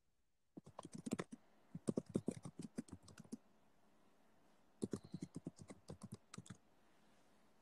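Faint computer keyboard typing: two runs of quick, irregular keystrokes, the first starting about half a second in and the second near the five-second mark.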